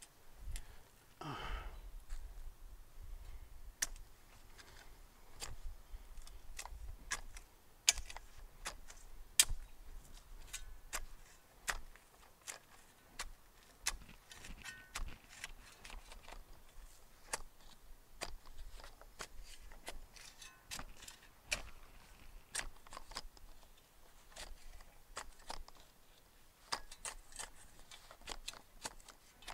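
A spade digging into garden soil: many short, sharp chops and scrapes of the blade at an uneven pace as a small planting hole is dug.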